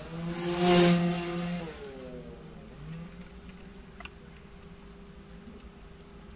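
Vexster 150 scooter engine revved once by the throttle just after a start, then its revs fall away and the sound drops to a faint steady hum by about two seconds in.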